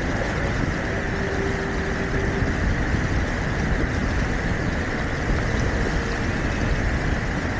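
Steady rush of wind and water on a Hobie Tiger F18 catamaran under sail, with wind buffeting the microphone.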